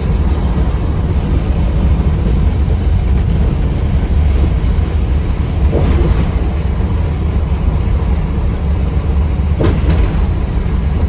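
Interior noise of a Mercedes-Benz 1626 coach cruising at highway speed: a steady low drone from its six-cylinder diesel engine, mixed with tyre and road noise. There are two faint knocks, about six and ten seconds in.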